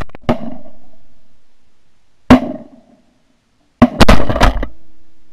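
Shotgun shots at a flock of Canada geese: one shot about a third of a second in, another about two seconds later, then several quick shots near the end. Each shot trails off in an echo.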